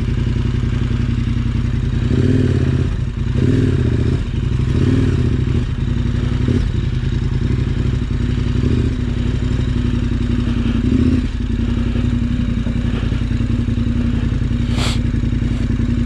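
Twin-cylinder adventure motorcycle engine idling, with several short throttle blips in the first two-thirds, then settling back to a steady idle. A single sharp click comes near the end.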